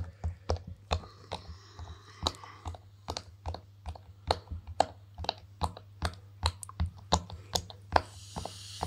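Silicone push-pop fidget toy having its bubbles pressed in one after another by fingers and a small plastic figure: a string of short, sharp pops, about three a second and irregularly spaced. A faint low hum runs underneath.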